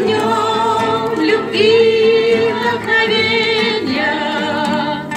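A group of voices singing an anthem together in Russian, drawing out long, held notes with vibrato that change every second or two.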